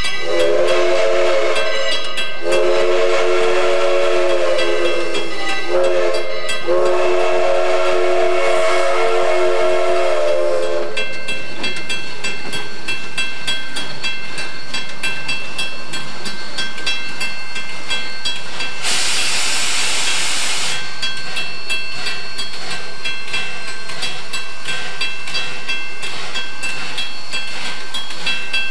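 Ex-Chicago & North Western 4-6-0 steam locomotive No. 1385 sounds its whistle in three long blasts, each longer than the last, the second sagging in pitch as it ends. About eight seconds later comes a sharp two-second hiss of released steam.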